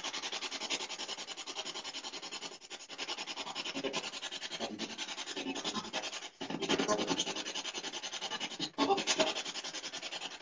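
Rapidly pulsing static and chopped radio fragments from a small speaker, the sound of a spirit box scanning through stations, as used to listen for supposed spirit voices. It drops out briefly about six and a half seconds in and again near nine seconds.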